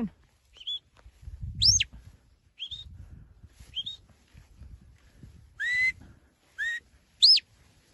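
A shepherd's whistle commands to a working sheepdog: a run of about seven short whistles a second or so apart, some short rising chirps and some swooping up high then dropping. The loudest, a long up-and-down swoop, comes about a second and a half in.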